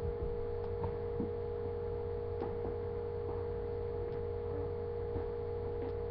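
Steady electrical hum with a few faint clicks and taps from plastic DVD and game cases being handled on a shelf.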